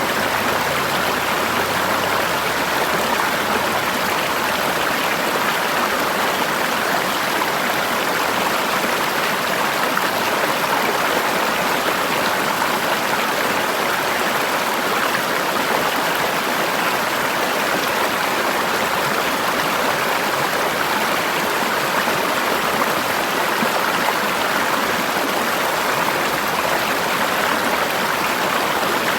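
Forest river water flowing steadily over rocks, a constant rushing wash.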